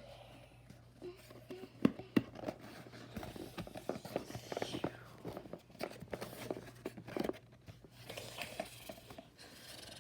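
Rustling with scattered light knocks and clicks, several sharper ones around two seconds in.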